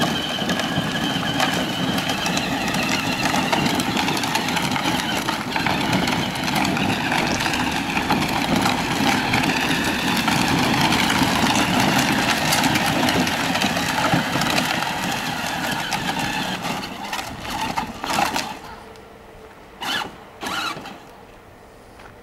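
Children's electric ride-on buggy driving over a gravel lane: a steady whine from its electric motors and gearboxes mixed with the plastic wheels crunching on gravel. It fades out about eighteen seconds in and is followed by two short noises.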